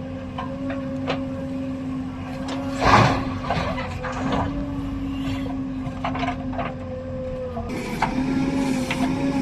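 JCB backhoe loader's diesel engine running with a steady hum, with scattered metallic knocks and a loud clatter about three seconds in; the sound grows fuller and louder near the end.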